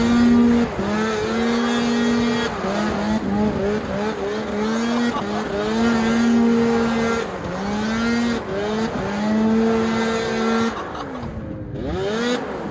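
Two-stroke 700 snowmobile engine revved hard again and again, each time climbing to high revs, holding there for a second or two and dropping back. Near the end it falls to lower, wavering revs.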